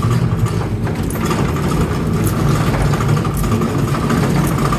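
Hand trolley loaded with a ladder being pushed along a hard floor, its wheels giving a steady rumbling rattle.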